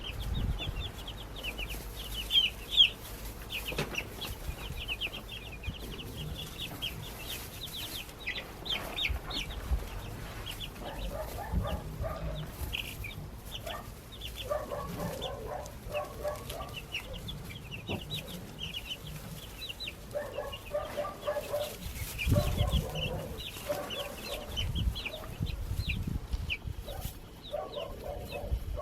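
Baby chicks peeping rapidly and continuously in high, short calls. From about ten seconds in, lower clucking calls come in several times, along with a few low bumps.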